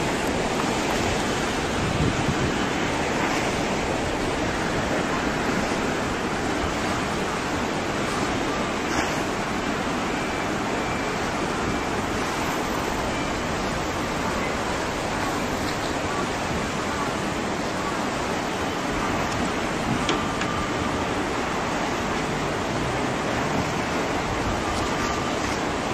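Tsunami floodwater rushing and churning through a fishing harbour, heard as a steady, even rush of water noise.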